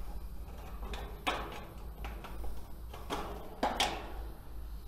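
A Colorbond steel gutter end cap being handled and pushed onto the end of a steel gutter: light metal scraping and clicking, with two sharper contacts about a second in and again about two and a half seconds later, over a low steady hum.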